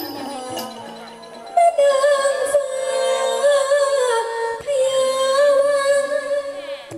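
A woman sings a long, drawn-out likay melody into a microphone over quiet instrumental backing, her voice coming in loud about one and a half seconds in and holding wavering notes.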